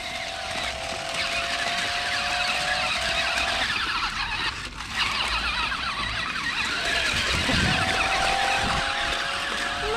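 Electric motors of two toy remote-control stunt cars whining steadily as they drive, over a busy crackle of wheels on dirt and gravel. The whine drops out about three and a half seconds in and comes back near the end.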